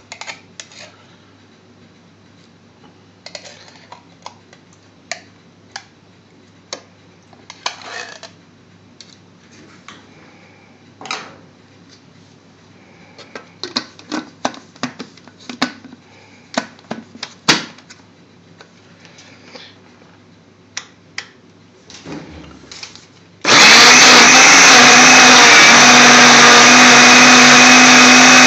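Light clicks and knocks of the plastic blender jug and lid being handled. About 23 seconds in, an electric countertop blender starts suddenly and runs loud and steady with a low hum, blending yogurt and mango.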